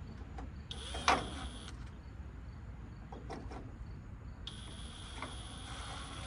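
Drill driving small screws into a headlight bezel, running with a steady high whine in two bursts: a short one of about a second, then a longer one starting near the end. There is a sharp knock about a second in.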